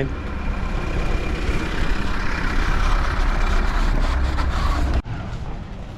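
A bus driving past close by: a loud engine rumble and road noise swelling over the first few seconds, cut off abruptly about five seconds in, leaving quieter street traffic noise.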